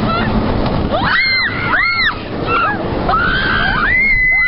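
Two riders screaming on a wooden roller coaster: a few short, high screams from about a second in, then a long held scream near the end, over the constant noise of the moving train and wind on the microphone.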